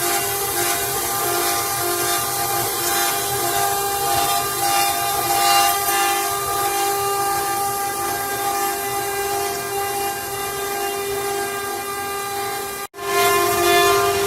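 CNC wood router running, its spindle giving a steady whine made of several held tones over a hiss. The sound breaks off sharply near the end and comes straight back.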